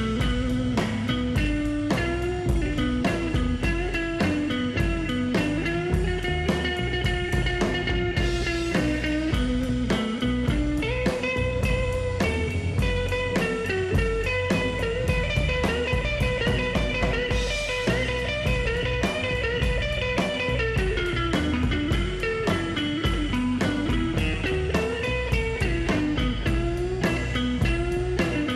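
Rockabilly band playing live: electric guitar leading over double bass and drums, with a steady, even beat and no singing.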